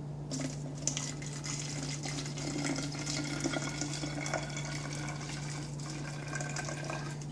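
Vinegar being poured from one bottle into a narrow-necked bottle: a continuous trickling, splashing pour of liquid, with a steady low hum underneath.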